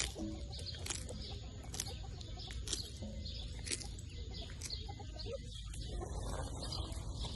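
Tortoise biting into lettuce: crisp crunches about once a second.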